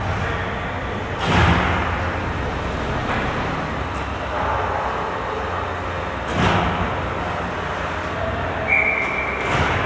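Ice-rink ambience with a steady low hum, broken three times by short scraping swooshes of hockey skates on ice close by: about a second in, past six seconds, and near the end. Shortly before the last swoosh, a brief high whistle-like tone sounds.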